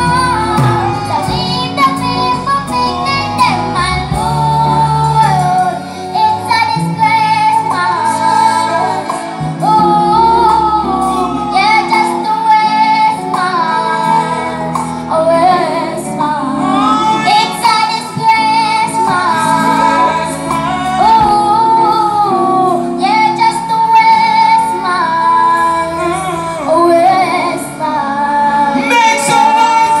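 A young girl singing solo into a microphone through a live stage sound system, over light band backing.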